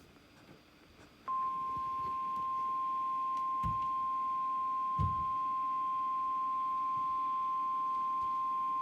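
NOAA Weather Radio 1050 Hz warning alarm tone: one steady, unbroken beep that starts abruptly about a second in and holds, signalling that a warning message follows.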